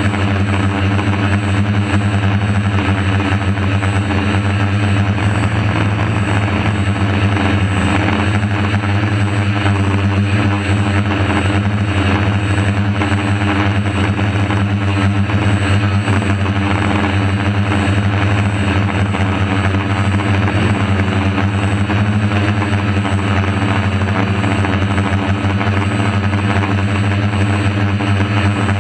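DJI F450 Flame Wheel quadcopter's DJI 2212 motors and propellers, heard up close from the GoPro mounted on the craft: a loud, steady hum.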